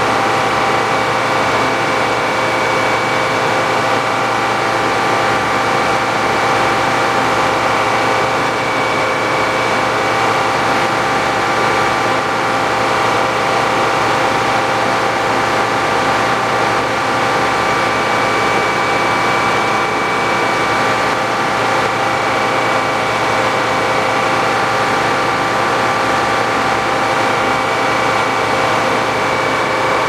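Old-style sawmill's large circular head saw and its belt drive running steadily with no cut under way, a constant hum with a steady high whine.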